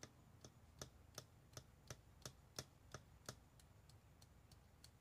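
Faint, sharp light clicks, evenly spaced about three a second, from small plastic craft containers and tools being handled while green pigment is added to the resin; they thin out near the end.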